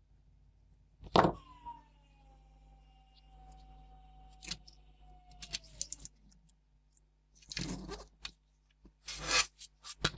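Handling noises from a circuit board and needle-nose pliers being worked on a bench. A sharp click comes about a second in, followed by a faint tone that slowly falls in pitch. Rubbing and scraping follow near the end, with a few light clicks.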